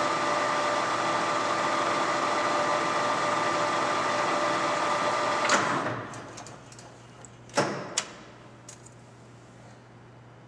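DoAll LT-13 toolroom lathe running with a steady machine whine of several fixed tones. It stops about five and a half seconds in, winding down within a second. About two seconds later come two sharp clicks half a second apart over a low remaining hum.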